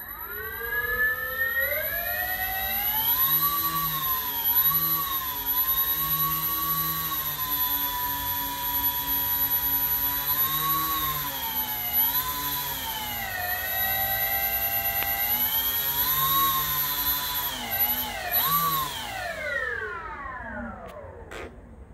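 Radio-control Twin Otter model's two motors spinning its propellers on the ground: a whine that climbs in pitch over the first few seconds, then rises and falls several times with the throttle. Near the end it winds down in a long falling whine and stops.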